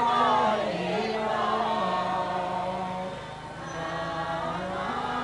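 A group of Buddhist devotees chanting in unison, a slow line of long held notes that step up and down between a few pitches.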